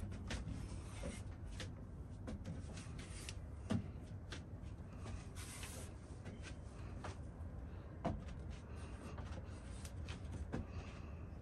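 Handling noise from a phone being carried and panned: scattered clicks and rubbing, with two louder knocks about four seconds apart, over a steady low outdoor rumble.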